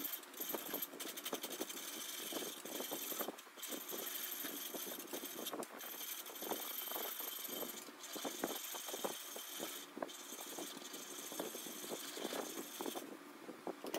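Chisel cutting a wooden baton spinning on a spring pole lathe, rounding over its end: a hissing scrape of steel on wood in runs of a second or two, each broken by a short pause as the lathe's stroke reverses.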